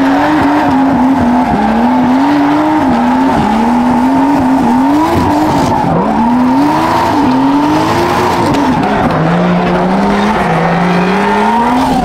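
A drift car's engine revs up and down in quick repeated swings of the throttle while its tyres squeal steadily. Near the end the engine note settles lower, then climbs again.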